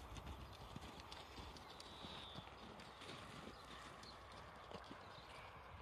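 Faint hoofbeats of a cantering horse on a sand arena, soft irregular thuds.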